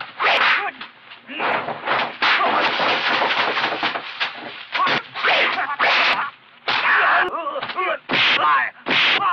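Kung fu film fight sound effects: a rapid run of dubbed punch and kick impacts and swishes, mixed with the fighters' shouts and grunts.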